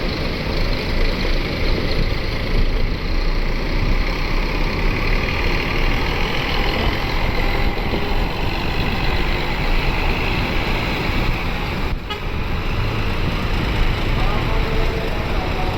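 Large intercity bus running loudly as it pulls out, a steady rush of engine and road noise with a brief dip about twelve seconds in.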